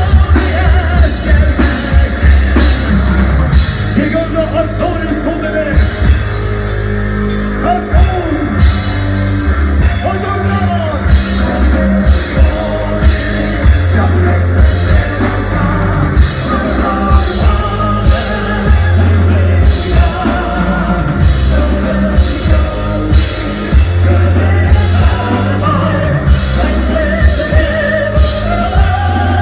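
Metal band playing live, with singing over a loud, steady drum beat and heavy bass.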